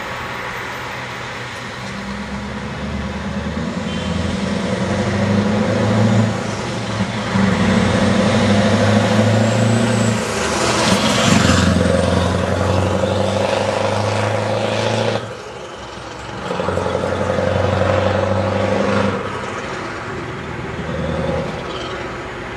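Scania V8 truck with a loud open-pipe exhaust driving close past and pulling away. The engine note breaks off and picks up again several times as it accelerates. It is loudest as the truck goes by, about eleven seconds in.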